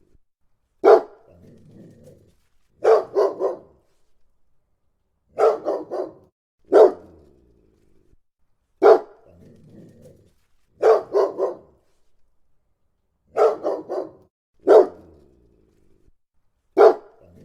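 A Labrador barking loudly and deeply, single barks and quick runs of two or three, repeating about every two seconds, with a faint low rumble after some of them.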